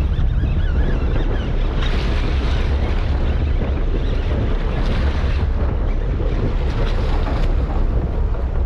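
Wind buffeting the microphone on the deck of a fishing boat at sea, a steady heavy rumble with the wash of the water beneath it.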